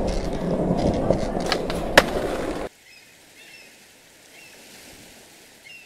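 Skateboard wheels rolling over a hard floor, a steady rumble with a sharp click about two seconds in. It cuts off suddenly before three seconds in, leaving a faint outdoor background with a few short bird chirps.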